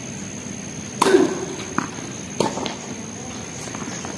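Tennis ball being struck by rackets and bouncing on a hard court during a rally: a few sharp pops, the loudest about a second in, with more spaced through the rest.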